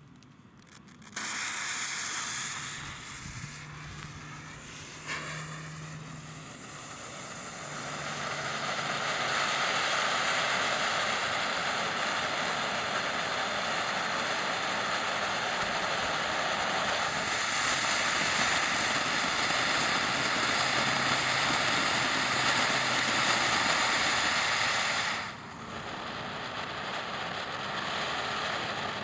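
TNT Combustion Chamber fountain firework spraying sparks: a loud, steady rushing hiss that starts suddenly about a second in, drops briefly near the end and then picks up again.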